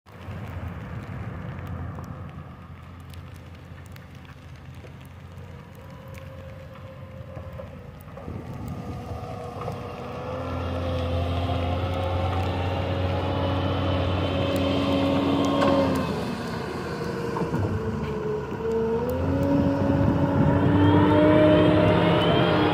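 Terex SKL873 wheel loader's diesel engine running as the machine pushes snow and drives past, getting louder as it comes near. About two-thirds of the way through the engine note dips and then climbs again, and a rising whine joins it near the end as the loader speeds up.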